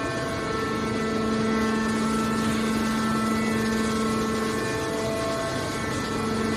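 Hydraulic can baler's power unit running with a steady, even hum and drone of its motor and pump.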